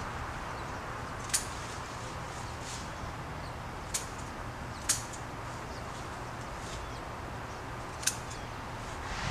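Branches snapping or being cut off a hedge: four short, sharp snaps spaced irregularly over several seconds, over a steady low hum.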